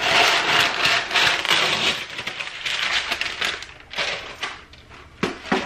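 Parchment paper pulled off its boxed roll and torn across the box's cutting edge, a loud crackly rip for the first couple of seconds, then the sheet crinkling and rustling as it is laid over a bowl, with a couple of light knocks near the end.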